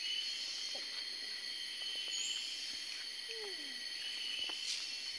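Forest insects shrilling steadily in several high-pitched tones at once.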